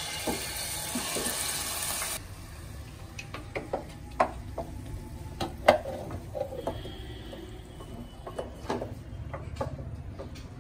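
A hiss for about two seconds that cuts off sharply, then irregular light clicks and knocks of utensils against cookware, as during stirring in a kitchen.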